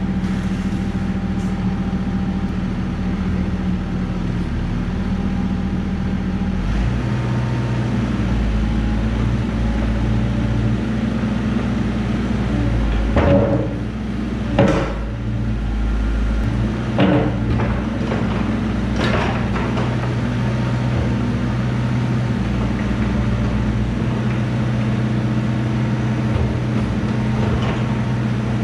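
Compact excavator's diesel engine running steadily, its note changing about seven seconds in, with a few sharp metallic knocks between about 13 and 19 seconds in.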